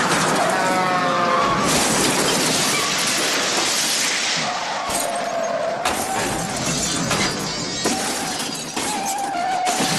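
A long, loud crash sound effect of glass shattering and debris breaking, going on without a break. In the first second or so a pitched sound slides downward over it, and a wavering tone comes and goes on top in the second half.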